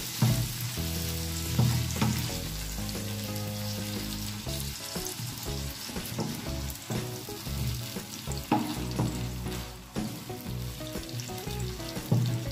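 Chicken and diced carrots sizzling in butter in a frying pan while a wooden spatula stirs in tomato purée, scraping against the pan now and then. Soft background music plays underneath.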